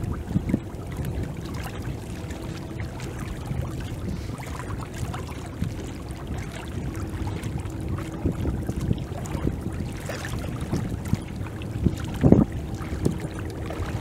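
Outdoor lakeside ambience: wind rumbling on the microphone with lake water lapping, with a louder buffet about twelve seconds in. A faint steady hum comes in about halfway through.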